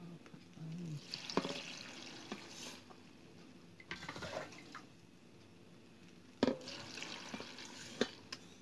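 Salt brine being scooped with a metal jug from a plastic basin and poured into a plastic jar packed with peppers, filling the pickle jar. Water splashes and trickles in three spells, with a few light knocks of the jug.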